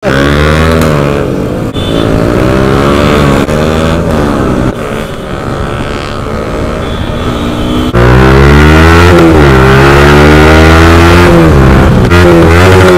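Yamaha R15 V4's single-cylinder engine through a loud aftermarket exhaust, revving hard while riding, its pitch climbing and dropping with throttle and gear changes. The sound is made of several short clips cut together, so it jumps abruptly a few times.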